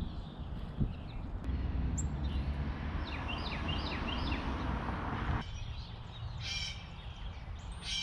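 Wild birds calling: a quick run of short repeated chirps, then a harsher, raspier call twice near the end. Beneath them is a steady rushing background noise that cuts off abruptly about five seconds in.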